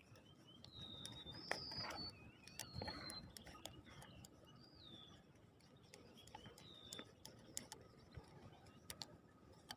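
Faint bird calls: several short whistled chirps, most in the first three seconds and a couple more near the middle, with a few soft clicks.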